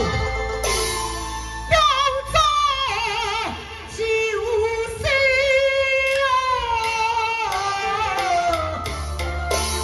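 A woman singing a Taiwanese opera (gezaixi) aria into a microphone, the voice coming in about two seconds in with long, wavering held notes over instrumental accompaniment.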